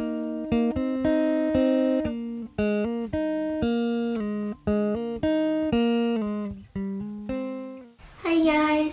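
Background music: a plucked guitar playing a gentle melody of single notes and chords, each note ringing out and dying away. It fades out about eight seconds in, and a different, louder sound comes in just before the end.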